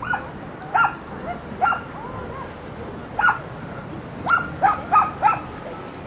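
A small dog yapping: a string of short, sharp barks at uneven intervals, with a quick run of four near the end.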